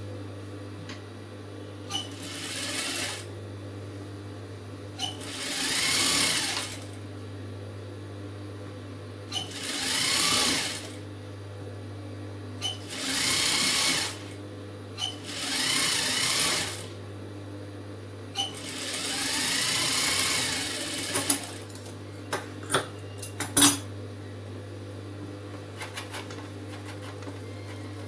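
Industrial single-needle lockstitch sewing machine stitching a blouse seam in six short runs of one to two seconds, each speeding up and slowing down, over a steady low hum. A few sharp clicks come near the end.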